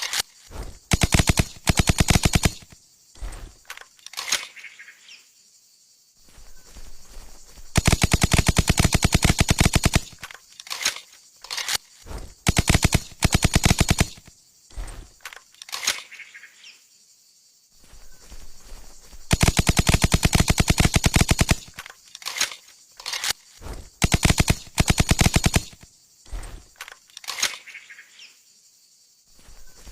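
Suppressed TMP submachine gun firing in bursts of rapid shots: two long bursts of about two and a half seconds and several shorter ones, with scattered single shots between them.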